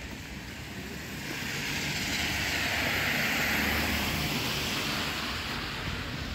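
A vehicle passing on the wet street: the hiss of tyres on wet asphalt, with a low rumble, swells, peaks in the middle and fades away.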